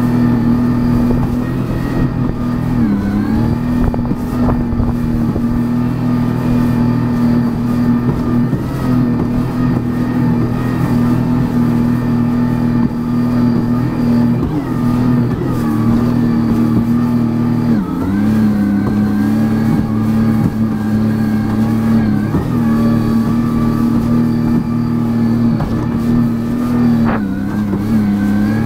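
Sea-Doo personal watercraft's engine running steadily at speed. Its pitch dips briefly and recovers several times, and runs a little lower for a few seconds past the middle.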